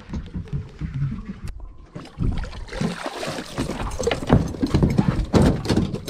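A large halibut hauled aboard an aluminum boat on a grapple hook, with water splashing, then thrashing on the deck in a rapid run of knocks and slaps that grows louder from about two seconds in.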